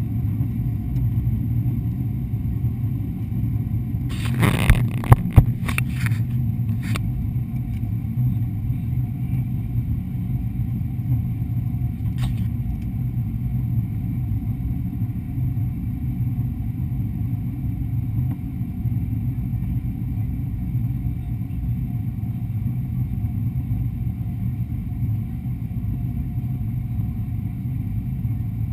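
Steady low cabin drone of a Boeing 777-200 airliner in flight, the engine and airflow noise heard from inside the cabin at a window over the wing. A short cluster of sharp knocks comes about four to six seconds in, and a single faint click about twelve seconds in.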